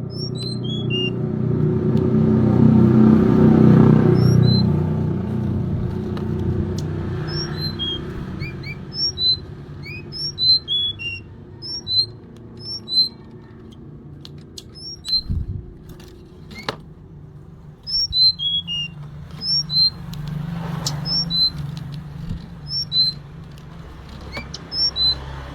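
Female tledekan gunung calling: runs of short, high, downslurred whistled notes, each run stepping down in pitch, repeated throughout. A low rumble like passing traffic runs beneath, loudest in the first few seconds.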